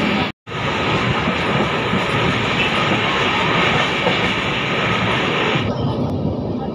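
Express train running on the rails: a steady, loud rumble and rattle of the coaches. It cuts out for a moment just after the start and turns duller near the end.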